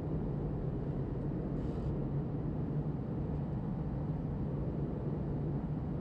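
Steady cabin noise inside an Airbus A320 airliner: the engine and airflow rumble holds level throughout, with a steady low hum running under it.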